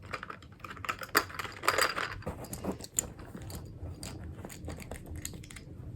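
Irregular clicks, knocks and rustles of small plastic fidget toys being handled and pushed into their cardboard box, busiest in the first few seconds.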